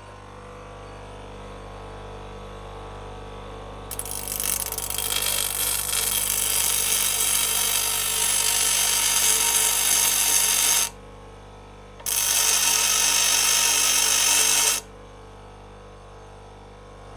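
Electric grinder motor running steadily, then the wheel grinding the tips of a row of small steel screws held in a block of wood. The harsh grinding noise comes in two spells of several seconds each, with a short break between them.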